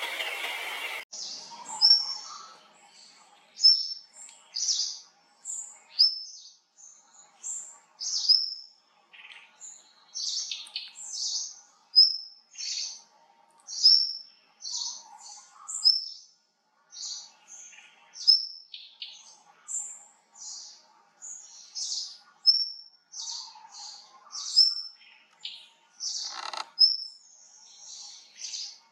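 Small songbird singing: a steady string of short, high, thin notes, one or two a second. A loud rushing sound with a few steady tones cuts off about a second in.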